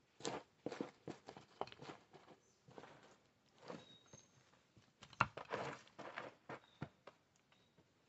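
Shoes scuffing and kicking through dry dirt, grit and ash on a rocky cave floor: a faint, irregular run of scrapes and knocks, with the loudest scrape about five seconds in.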